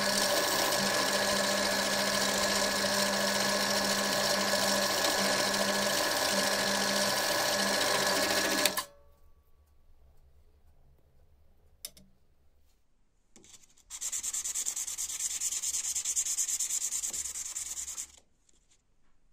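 Bench drill press running steadily while a countersink bit cuts into a brass guard block; the motor is switched off and stops abruptly about nine seconds in. Near the end, the brass piece is rubbed back and forth on sandpaper for about four seconds to flatten it.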